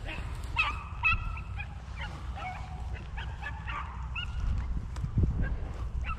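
A pack of rabbit hounds baying in overlapping calls, some short and some drawn out, as they run a rabbit's trail, over a steady low rumble.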